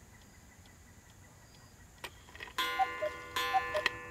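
Black Forest cuckoo clock ticking faintly, then calling "cuckoo" twice about halfway through. Each call is a high note followed by a lower one, over a ringing tone.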